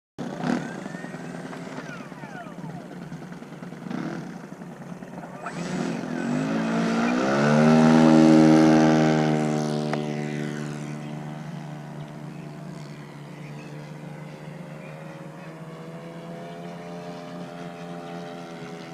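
Engine and propeller of a radio-controlled model warbird running, revving up sharply about six seconds in to its loudest point, then settling back to a steady drone.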